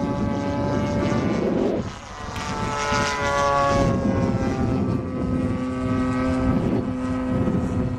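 A quarter-scale RC aerobatic plane's DL-50 50cc gasoline engine and propeller in flight. The note dips briefly about two seconds in, then swells and slides down in pitch as the plane passes, settling into a steady drone.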